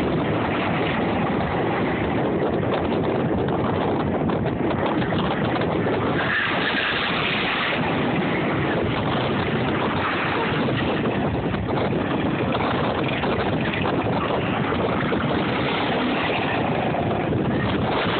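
Go-kart engines running as karts drive the course, mixed with wind noise on the phone's microphone; the sound stays at a steady level with no sudden events.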